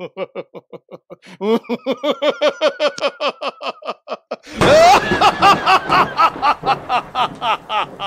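A man's drawn-out theatrical evil laugh in quick, even "ha-ha" pulses that grow louder and higher about a second and a half in. About four and a half seconds in, a loud rumbling crash like a thunder sound effect breaks in, and the laughing goes on over it.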